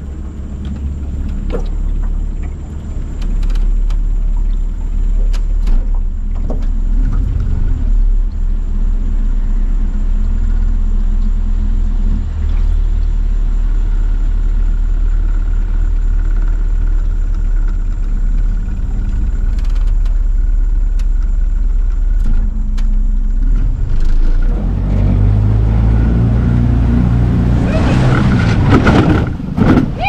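Johnboat's outboard motor running steadily with the boat under way. Near the end the engine note changes and grows, with a loud rush of water.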